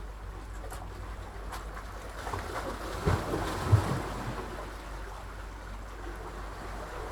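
Sea water washing and sloshing in a steady rush, with two low thuds a little over three seconds in.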